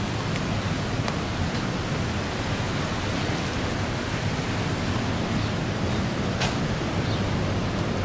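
Steady rushing noise of the Manavgat waterfall's falling water, even throughout, with a faint click about six and a half seconds in.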